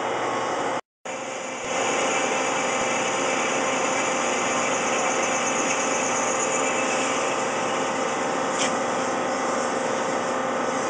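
Hwacheon Hi-Tech 200A CNC lathe running, its spindle turning a part while a boring bar cuts inside the bore: a steady machining noise with a faint tick about eight and a half seconds in. The sound cuts out for a moment about a second in, then comes back a little louder.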